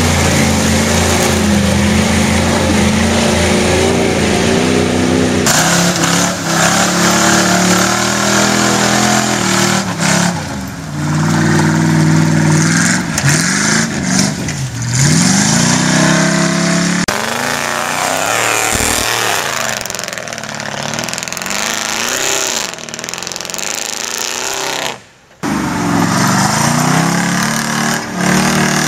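Lifted pickup truck engines revving hard while the trucks plough through a deep mud pit, the engine pitch climbing and falling again and again. The sound changes abruptly twice where one clip cuts to the next, and drops out briefly near the end.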